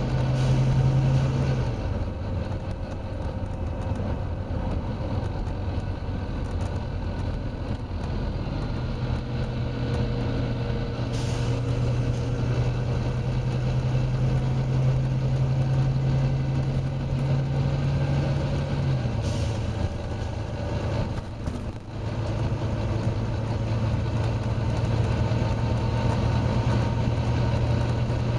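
Volvo B9TL double-decker bus's six-cylinder diesel running hard under way, heard from on board as a loud, steady drone whose pitch drops and climbs again a few times as it changes gear. A few short hisses of air break in.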